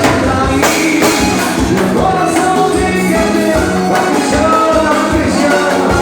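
Upbeat Latin dance music with singing over a steady, regular beat.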